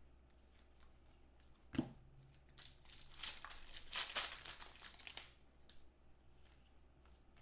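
Foil trading-card pack wrappers crinkling and tearing as packs are ripped open by hand, in several short rustling bursts with brief pauses between them. A sharp knock about two seconds in is the loudest moment.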